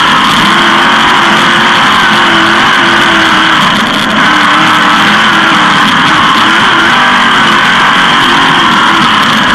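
360 sprint car's V8 engine running loud at racing speed, its pitch rising and falling.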